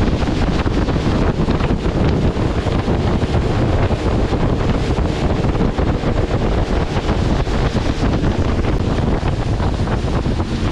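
Heavy wind buffeting the microphone of an open tour boat under way, over the rush of water along the hull.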